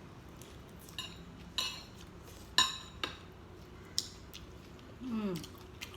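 Cutlery clinking against dishes during a meal: about five short, ringing clinks, the loudest about two and a half seconds in. A short vocal sound falling in pitch comes near the end.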